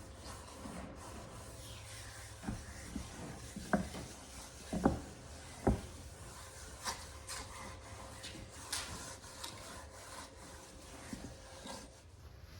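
A cloth rubbing wax into a wooden piece, with several sharp knocks of the wood being handled and set down a few seconds in, and short scrapes later on.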